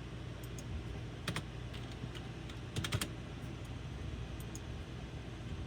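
A few scattered computer keyboard key presses, with a quick cluster of clicks about three seconds in, over a steady low hum.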